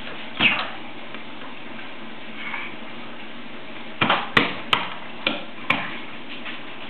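Hands tapping and patting on a wooden bench: one knock under a second in, then a cluster of about six sharp, irregular knocks between four and six seconds in.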